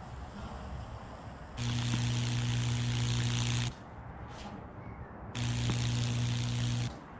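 High-voltage fractal wood burner, a microwave-oven transformer, arcing across wet oak: two bursts of a loud, steady electrical hum with a crackling hiss, the first about two seconds long, the second about a second and a half, each cutting off suddenly as the safety switch trips.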